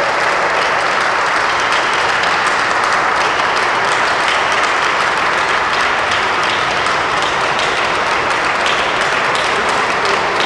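A small crowd of guests applauding steadily.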